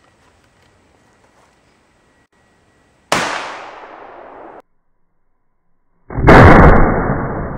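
Two shots from a cut-down 12-gauge shotgun with an 18½-inch barrel firing 1 oz slugs, about three seconds apart. Each blast is followed by a trailing echo; the first echo cuts off abruptly, and the second shot is the louder.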